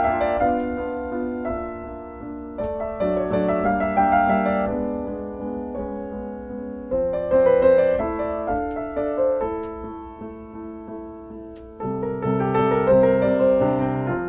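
Background piano music: slow chords struck every few seconds, each left to ring and fade.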